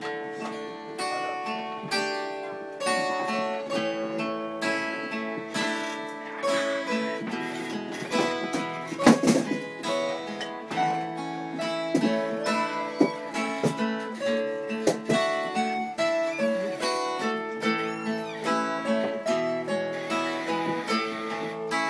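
Two acoustic guitars playing a song's intro, chords strummed and picked in a steady rhythm, with one louder strummed accent about nine seconds in.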